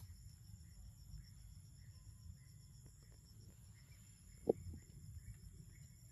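Insects droning in a steady high-pitched chorus of several even tones over a low outdoor rumble, with one short, louder sound about four and a half seconds in.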